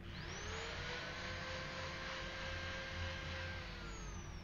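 Small electric motor of a handheld power tool with a disc pad on the end of a wooden hickory handle. It spins up at the start with a rising whine, runs steadily, and winds down with a falling pitch near the end.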